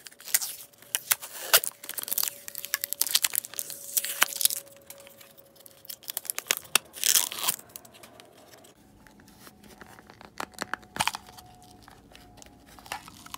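Packaging being torn open and crumpled while a small diecast car is unwrapped: dense sharp crackles and rustles for the first half or so, then fewer, quieter clicks.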